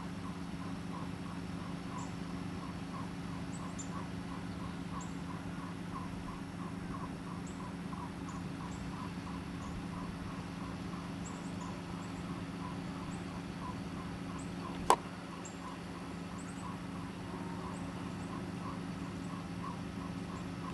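Outdoor ambience: a steady low hum under a regular chirping about twice a second, with scattered short high chirps. A single sharp click about fifteen seconds in is the loudest moment.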